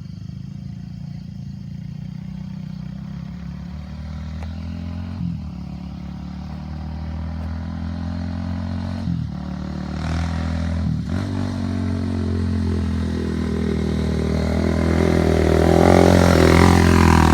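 Rebuilt Honda ATC350X three-wheeler's single-cylinder four-stroke engine running under way. It revs up and drops back at three gear shifts, getting steadily louder as it comes closer.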